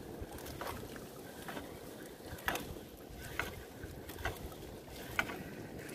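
Small wooden fishing boat with a sinking gill net being hauled in by hand: light knocks or splashes come about once a second over a steady low wash of water and hull noise.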